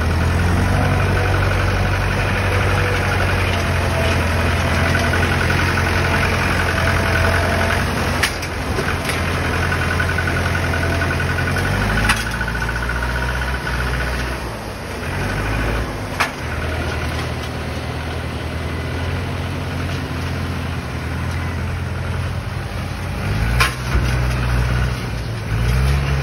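Tractor diesel engines running under load while one tractor tows a stuck tractor free. The engine note holds steady for about twelve seconds, then wavers and rises again near the end, with a few sharp knocks along the way.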